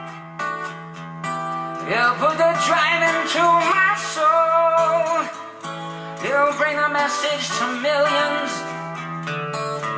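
A song with acoustic guitar and singing, played back through Pioneer PE-101A full-range speakers, with almost nothing in the deep bass.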